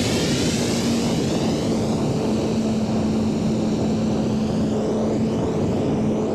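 Electric motor and propeller of a small homemade radio-controlled airplane running steadily in flight: a held, even whine over a rush of noise.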